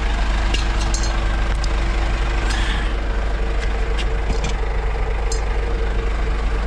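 Scania S500 truck's 13-litre straight-six diesel idling with a steady low rumble, with a few light clicks from the cab's side storage locker being opened and handled.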